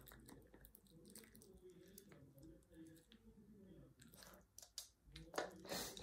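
Poodle faintly chewing and gnawing on a dental chew held in a hand, soft scattered clicks of teeth on the chew, with a few louder clicks near the end.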